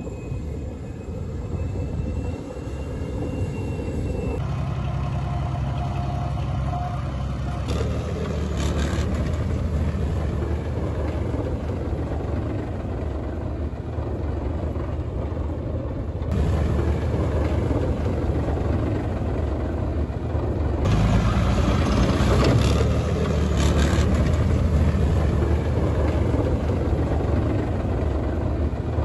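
Heavy tracked armoured vehicles, tanks and a BMP-2, running their engines as they drive across a pontoon bridge. The sound is a steady, loud low-pitched drive noise that changes abruptly several times where different clips are spliced together.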